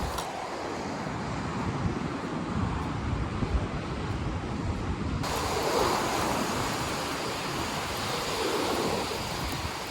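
Rough ocean surf breaking and washing on the beach, with wind buffeting the microphone. The hiss turns suddenly brighter about five seconds in.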